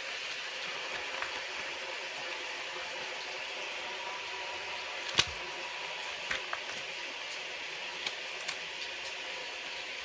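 Steady hiss of heavy rain, with a few light clicks and one sharper knock about five seconds in.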